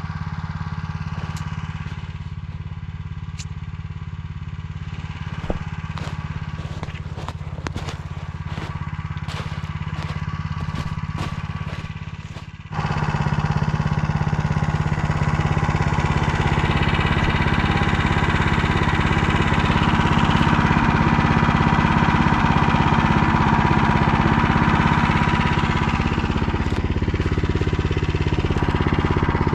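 Motor Sich engine idling steadily, with a run of sharp clicks and snaps over it. About 13 seconds in it suddenly speeds up and keeps running louder under throttle.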